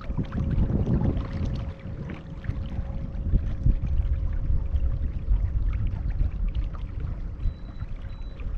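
Wind buffeting the microphone with water lapping against a small skiff's hull: a low, uneven rumble that swells and eases, with a faint steady hum underneath.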